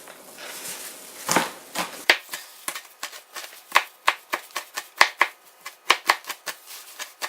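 Large chef's knife rocking and chopping jalapeños on a cutting board. A run of quick, irregular blade taps starts about a second in.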